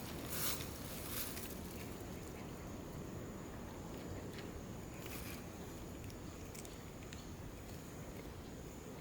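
A cat chewing its food, with a few short crunches in the first second or so and another about five seconds in, over a steady background hiss.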